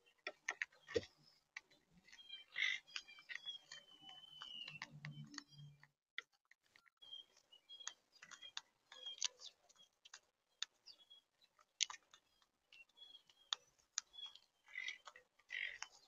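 Monk parakeets feeding at a tray feeder of mixed seed: irregular sharp clicks and cracks of beaks husking seeds and knocking on the tray, with a few faint high chirps.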